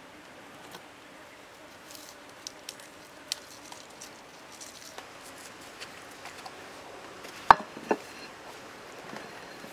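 Light clicks and taps of food being handled in a metal tray, then two sharp knocks close together about three-quarters of the way in as a plate is set down on a wooden board.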